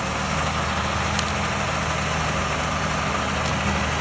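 Heavy farm machinery's engine running steadily under a wide mechanical noise, with a couple of light ticks about a second in and near the end.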